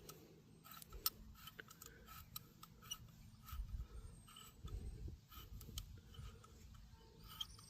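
Faint, scattered small clicks and ticks from a hex key and the brake pad retaining pin being worked on a Harley-Davidson Sportster front brake caliper, with a soft low rumble of handling about halfway through.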